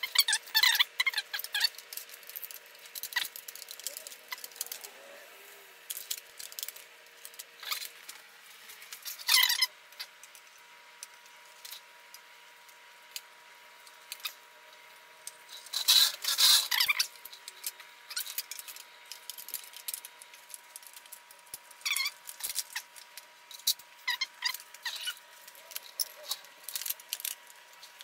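Hands working on a Honda Grom's plastic body panels and wiring connectors: scattered clicks, taps, rustles and squeaks, with a few louder rattles of the panels, as a turn-signal connector is plugged in and the fairing is fitted.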